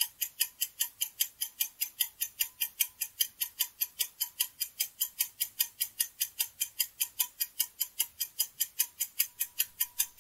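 Countdown-timer sound effect: a clock ticking evenly and quickly, about five ticks a second, marking the time left to guess.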